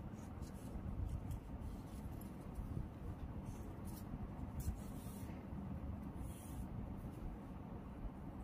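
Faint, brief swishes and scratches of needle and thread being drawn through crocheted fabric while a zip is hand-sewn in, a few times over the stretch, above a steady low background rumble.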